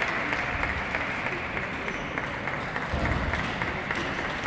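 Table tennis hall ambience: a steady clatter of many balls ticking on tables and bats from surrounding play, with indistinct voices and a dull low bump about three seconds in.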